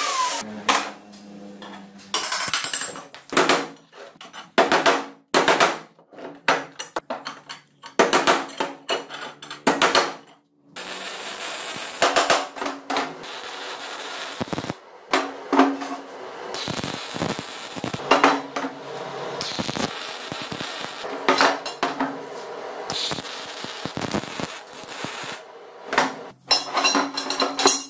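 Metalworking on steel square tubing. An angle grinder winds down at the start, then arc-welding crackle comes in stretches of a few seconds, broken by repeated hammer taps and clanks of steel on the steel welding table.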